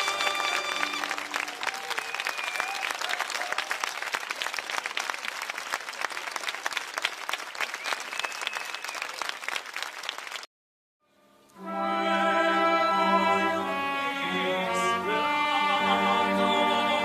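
An orchestra's final chord dies away about a second in, followed by audience applause for about nine seconds. After a sudden cut to silence, the orchestra starts the next piece with held chords.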